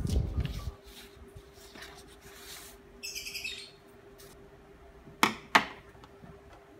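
Printed paper sheets handled and shuffled on a table, with two sharp knocks against the tabletop just after five seconds. A short high bird chirp sounds about three seconds in.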